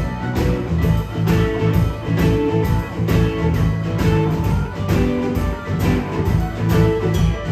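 Blues band playing live: electric guitar over bass and drums, with a steady beat of about two strokes a second.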